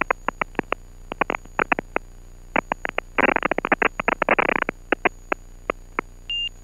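Irregular crackling clicks on the aircraft's headset-intercom audio, thickening into a dense run in the middle, over a steady hum, with a short high beep near the end.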